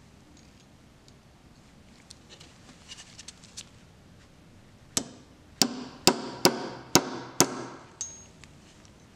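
Six sharp metal hammer taps, about two a second, on a threaded steel stud fitted through a knurled knob that rests on a steel socket, each tap ringing briefly. They follow a few light clicks of the small parts being handled.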